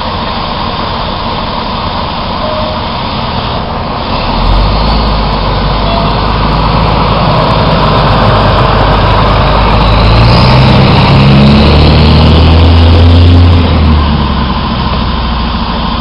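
Fire truck's diesel engine running, with a heavy low rumble building from about four seconds in. Near the end it revs up, its pitch climbing in steps, then drops back.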